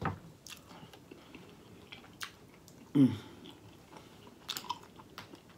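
Close-up mouth sounds of chewing a bite of fried corned beef egg roll, with scattered crisp little clicks and smacks. There is a short hummed vocal sound about three seconds in.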